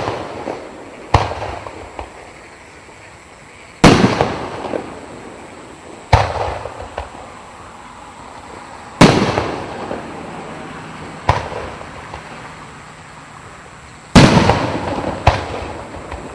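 A 3-inch, 36-shot consumer fireworks cake firing. Sharp bangs come every one to three seconds, each trailing off over a second or two.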